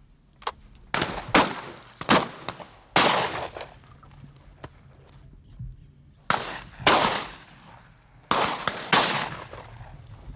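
Shotguns firing, about nine shots spread across the stretch, several coming in quick pairs less than a second apart. Each shot has a short fading tail, and some are louder and closer while a few are fainter.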